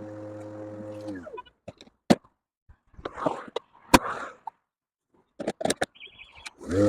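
Stihl RMA 448 VC battery lawn mower's electric motor running steadily, then winding down to a stop about a second in. A few sharp clicks and knocks with some rustling follow, then a short high tone. Near the end the motor spins back up to speed.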